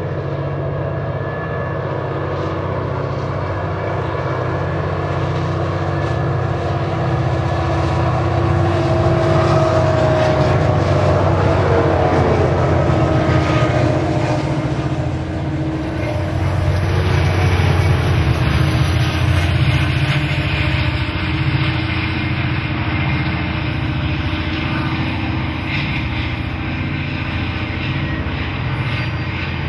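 Three diesel freight locomotives working under load, hauling a long loaded train: a loud, steady, heavy engine drone. A thin whining tone briefly rides over it about ten seconds in.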